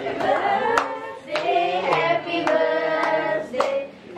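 A group of people singing a birthday song together, clapping along in time, a little under two claps a second.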